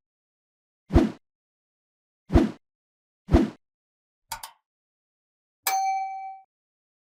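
Sound effects: three short thuds, a quick double click, then a single bell-like ding that rings for under a second.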